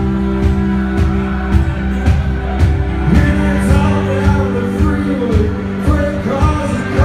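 Live country-rock band playing: fiddle, electric bass and guitar over a steady drum beat, with singing coming in partway through.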